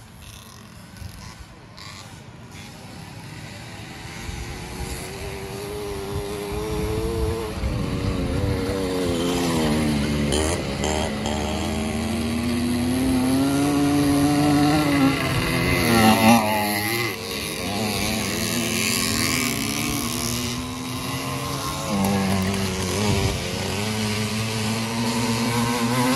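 Small two-stroke engines of racing motorized bicycles, buzzing as they come closer. The sound grows louder over the first ten seconds, then the pitch falls and rises again as riders ease off and open up the throttle through the track's turns.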